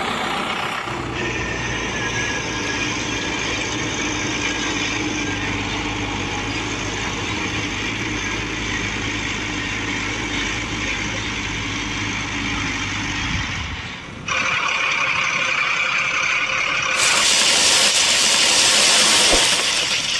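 Heavy vehicle engine running steadily with a low hum. About 14 seconds in it cuts to a hissing rush of noise, which grows louder and broader about three seconds later.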